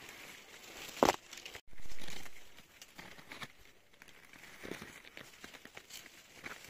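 Rustling and crackling with scattered small clicks, and one sharp knock about a second in.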